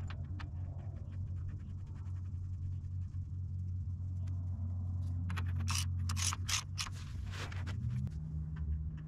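A drain bolt being screwed back into a tractor's transmission case and tightened with a wrench: light metallic clicking and scraping, then several louder rasping strokes between about five and seven and a half seconds in, over a steady low hum.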